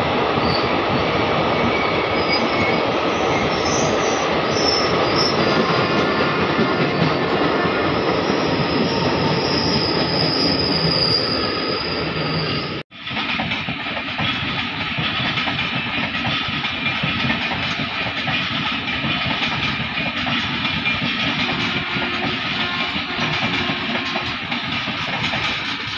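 Passenger train running, heard from on board: a steady rumble and rattle of wheels on rail, with a high wheel squeal over the first half. A momentary break to silence comes a little before halfway, then the running noise carries on slightly quieter.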